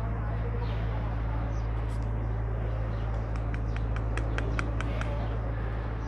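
Steady background of a busy cattle shed: a constant low hum with a haze of distant noise. About three seconds in comes a quick run of about ten short high chirps, roughly five a second, lasting about two seconds.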